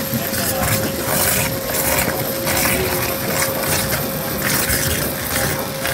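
Flow M2-1313b abrasive waterjet cutting through plate: the high-pressure water-and-garnet jet from the Paser ECL Plus head makes a loud, steady rushing hiss, with a thin steady tone underneath.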